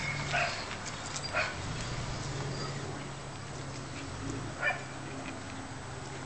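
Scottish terrier puppies playing and giving three short, high yaps: one near the start, one about a second later, and one a little past the middle.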